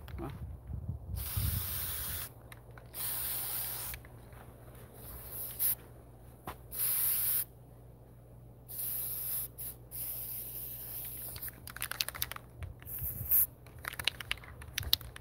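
Aerosol can of cold galvanizing spray paint being sprayed onto steel foundation anchor bolts in a series of short hissing bursts, each up to about a second long.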